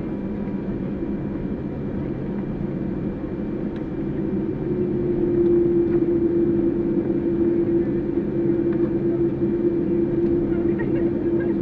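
Steady engine drone of a vehicle heard from on board, with a low hum. About five seconds in, a steady higher hum comes in and the drone gets louder.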